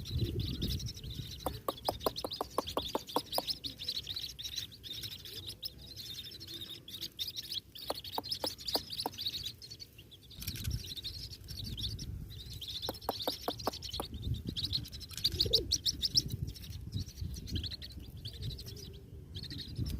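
White-breasted waterhen chick peeping in high, rapid chirps, with three short runs of quick clicks in between.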